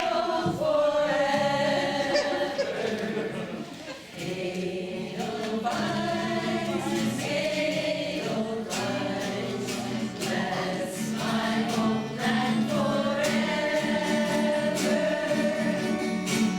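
A small group of women singing together in harmony, a choir song in progress.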